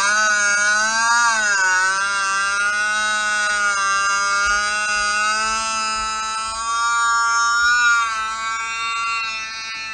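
Kazoo buzzing one long held note, with a short dip and rise in pitch about a second in, then holding steady until it stops near the end.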